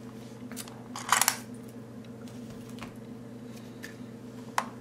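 Small hard clicks and clatter as a phone in a metal bumper case is handled and lifted out of the plastic tray of a UV phone sanitizer, loudest about a second in, with one more click near the end, over a steady low hum.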